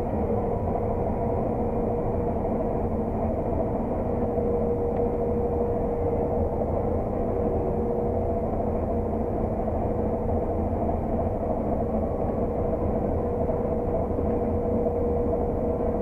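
Claas Lexion 600 TT combine harvester heard from inside its cab while combining oilseed rape: a steady engine and threshing drone with a constant whine.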